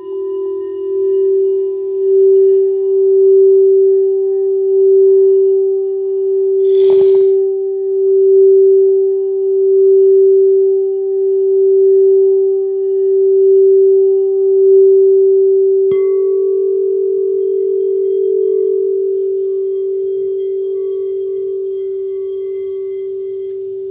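Singing bowl sounding one steady low tone that swells and fades in a slow, even pulse, as when the rim is played round. About sixteen seconds in a bowl is struck, adding higher ringing tones, and the sound then dies away slowly. A short hiss comes about seven seconds in.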